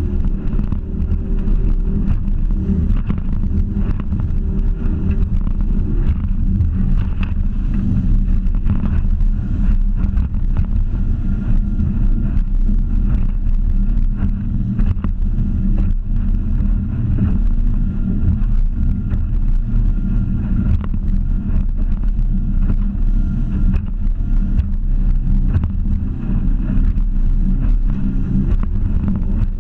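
Outboard motor running steadily at speed, with the rush of water and wind noise on the microphone.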